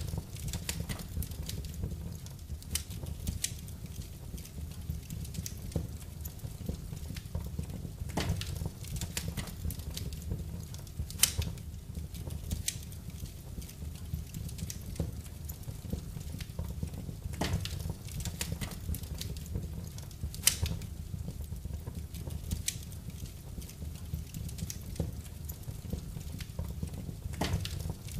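Wood fire burning in a fireplace: a steady low rumble of flames with irregular crackles and pops, the sharpest pops about eleven and twenty seconds in.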